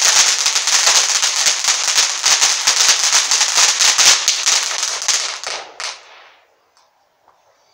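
Firework fountain spraying sparks with a dense, rapid crackle, which dies away about six seconds in after one last sharp crack.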